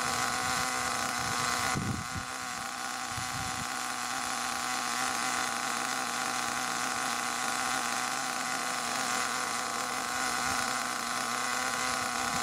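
HPI Savage XL 5.9's nitro glow engine idling steadily with the truck on a stand, running in its third tank of fuel at a standstill. There is a slight shift in tone and a few low bumps about two seconds in.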